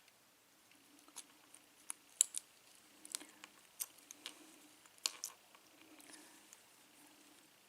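Small sharp metal clicks and taps from handling a Euro cylinder lock and its tools, coming irregularly, mostly within the first five and a half seconds.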